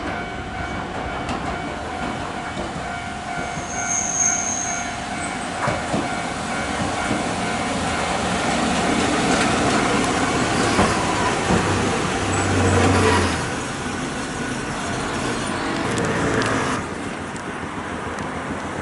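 Hankai Tramway tram car 703 approaching and passing close by: a steady motor whine, wheels running on the rails with occasional clicks over rail joints, and a brief high squeal about four seconds in. It is loudest as it goes past, then slows and stops at the platform, and the sound drops near the end.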